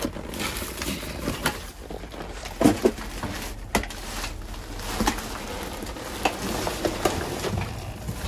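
Rummaging through trash by hand: plastic garbage bags and plastic fruit packs rustling and crinkling, with scattered sharp knocks as cardboard boxes and clamshells are handled.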